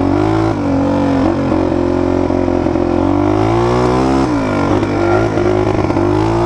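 Honda XLX 250R's air-cooled single-cylinder four-stroke RFVC engine running under way on a dirt track, its revs dropping and climbing back a few times as the throttle is rolled off and opened again.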